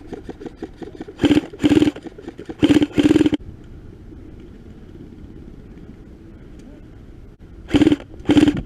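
Airsoft rifle firing six short rapid bursts in three pairs: two pairs starting about a second in, and one pair near the end.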